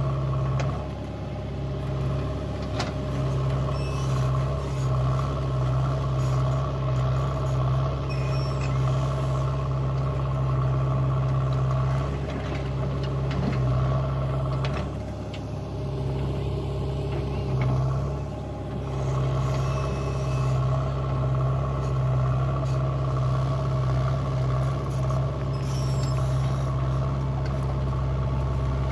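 Diesel engine of a JCB 3DX backhoe loader running steadily while it works, easing off briefly twice around the middle, with a few faint knocks.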